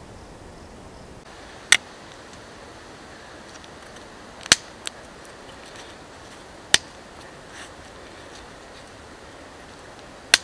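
Dry sticks of fatwood snapped by hand: four sharp cracks a few seconds apart, one followed quickly by a smaller crack, over a faint steady hiss.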